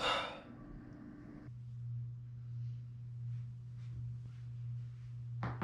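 A short, noisy breath out through the nose just after an almost-sneeze. A steady low hum starts about a second and a half in, and a sharp click comes near the end.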